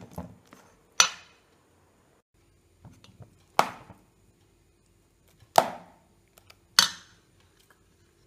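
Steel spoon clinking against the side of a steel mixing bowl while stirring runny chocolate cake batter: about five sharp clinks spread a second or two apart, with faint scraping between.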